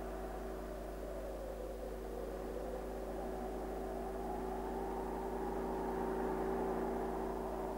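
Vehicle engines as they pull away: a steady drone that swells slowly and then eases off near the end.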